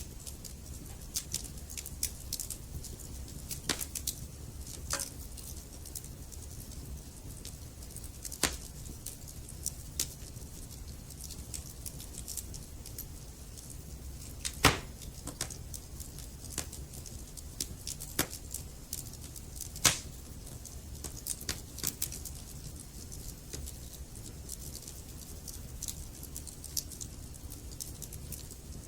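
Wood fire crackling in a fireplace: burning logs give irregular sharp pops and snaps over a steady low rumble, with two louder pops about halfway through and about two-thirds of the way through.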